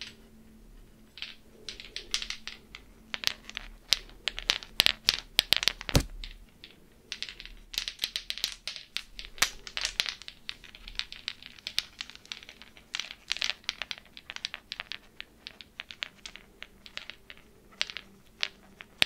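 Fingernails tapping and scratching on a cluster of hanging speckled Easter egg ornaments, making quick irregular clicks, with one louder knock about six seconds in.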